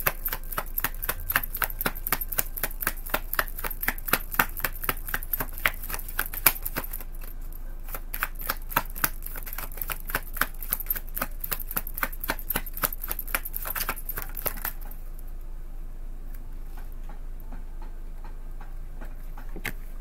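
A deck of tarot cards being shuffled by hand: a quick run of card snaps, several a second, that stops about three quarters of the way through, leaving only a faint low hum.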